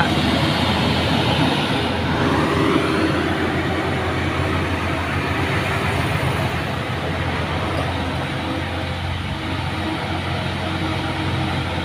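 Heavy diesel trucks climbing a steep grade, their engines working under load in a steady low drone, with a rising whine about two seconds in.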